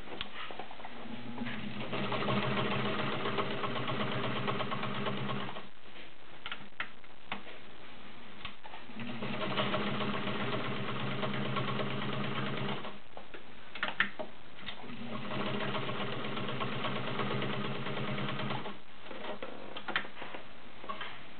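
All-metal Kenmore Model 33 zigzag sewing machine with a 1.2-amp motor, stitching through 14 layers of cotton in three runs of a few seconds each. Its motor hums steadily under the rapid needle strokes, and a few sharp clicks fall in the pauses between runs.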